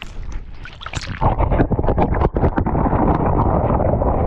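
Audio from a GoPro submerged in shallow lake water: a muffled rumbling noise heard through the camera housing, much louder from about a second in, with many small clicks and knocks.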